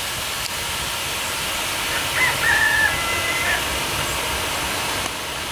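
Air compressor blowing off air: a steady hiss, with a short high-pitched call about two seconds in.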